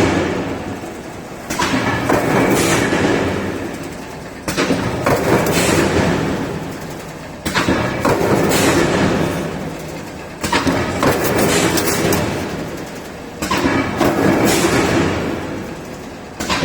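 Servo-fed sheet-metal coil line running in repeating cycles about every three seconds: each cycle starts with a sharp knock, then loud mechanical clatter and rush that fades away.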